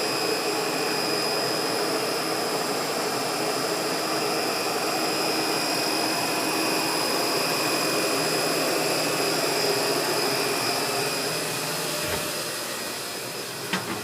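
Northern Lights diesel generator running steadily in a yacht's engine room, a loud even machine noise with a thin high whine on top. It eases a little near the end, where two faint clicks are heard.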